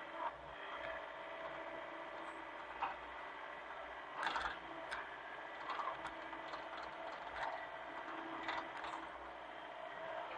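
Hitachi mini excavator running steadily, with its engine and hydraulics holding a constant drone, broken by irregular knocks and clatter, the loudest cluster about four seconds in.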